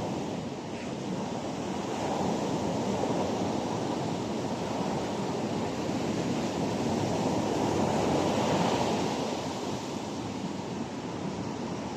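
Ocean surf washing onto the beach: a steady rushing noise that swells a little about two seconds in and again around eight seconds.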